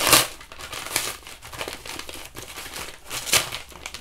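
A paper envelope crinkling as it is handled and pulled open by hand, in irregular rustles, loudest right at the start and again about three seconds in.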